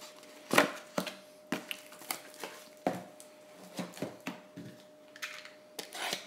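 Trading card packs and a cardboard mini box being handled on a tabletop: a string of sharp taps and clacks, then a rustle of packaging near the end.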